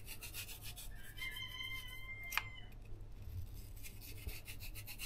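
Winter squash being scraped out by hand: rapid, even rasping strokes as the soft inner flesh is scraped from a piece of hard-rinded squash. About a second in, a brief high ringing tone sounds and ends in a sharp click, after which the scraping resumes.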